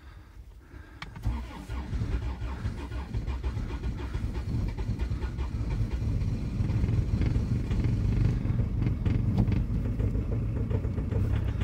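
Diesel car engine cold-cranked on its starter at −19 °C after three glow-plug cycles. The starter cuts in about a second in and turns the engine over with a rapid pulsing for about ten seconds. The sound grows louder and steadier toward the end as the engine begins to fire.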